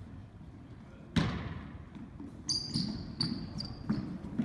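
Basketball bouncing on a hardwood gym floor: one loud bounce about a second in that echoes in the hall, then a few lighter ones. Short high sneaker squeaks come in the middle.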